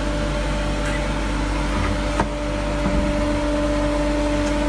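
Steady machine hum with a constant tone, from something running in the workshop, and one sharp click about two seconds in.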